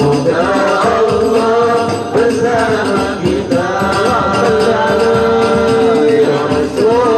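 Islamic qasidah sung by a male lead voice into a microphone over a steady, dense beat of hadrah frame drums (rebana). Near the middle the singer holds one long note.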